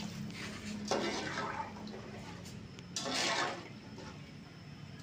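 Water poured from a bowl into an aluminium pot of potato curry, splashing about a second in. A second, shorter splashing surge about three seconds in as a slotted ladle stirs the liquid.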